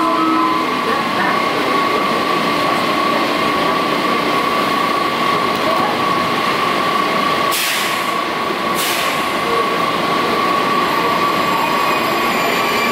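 Washington Metro railcar at an underground platform: a steady high electrical whine over a loud rumble of train and station noise. Two short hissing bursts come about eight and nine seconds in, and the train starts to pull away near the end.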